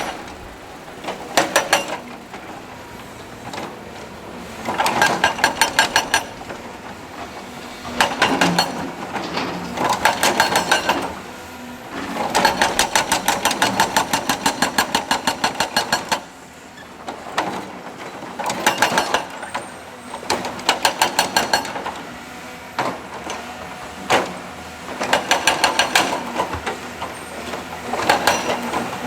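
Heavy rock-breaking machine hammering in repeated bursts of rapid blows, each burst lasting one to several seconds, with a diesel engine running steadily in the pauses between bursts.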